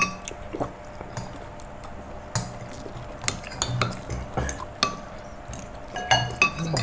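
Metal spoons and forks clinking and scraping against ceramic plates and bowls as people eat. There is a sharp clink right at the start, then scattered clinks throughout.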